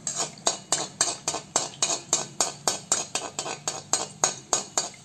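Perforated metal skimmer stirring hot oil in a metal kadai, clinking and scraping against the pan in a quick, even rhythm of about three to four strokes a second, while gulab jamun dough balls fry.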